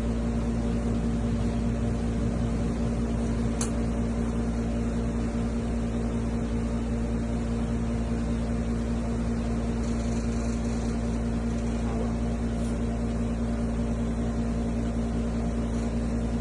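Steady machine hum with a constant low tone and its overtones over an even hiss; a faint tick about three and a half seconds in.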